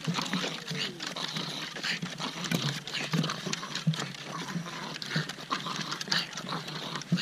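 Pug panting heavily as it trots along, with footsteps knocking and thudding on a wooden boardwalk.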